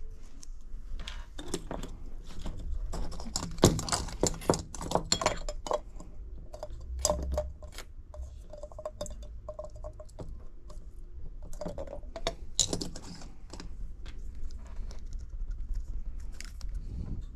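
Small clicks, taps and rattles of tools and phone parts being handled on a repair bench, busiest a few seconds in and again near the end, with a faint broken tone in the middle.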